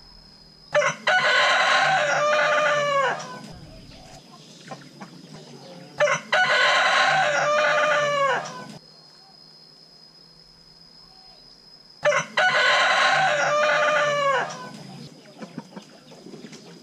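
Rooster crowing three times, about six seconds apart; each crow is a short note followed by a long drawn-out call that falls away at the end.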